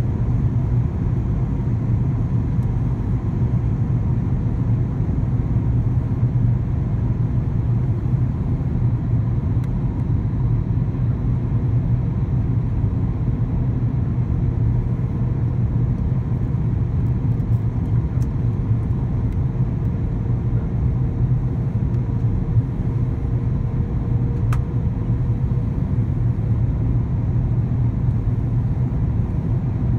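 Steady cabin noise inside an Airbus A340-600 airliner on approach: an even low rumble of engines and airflow. A faint steady tone joins it through the middle.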